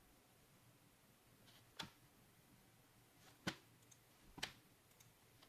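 Three sharp clicks, about a second or two apart, in an otherwise near-silent small room, with a couple of fainter ticks between them.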